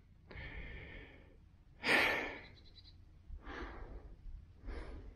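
A man breathing audibly. There is a loud, sigh-like exhale about two seconds in, and softer breaths before and after it, about every second and a half.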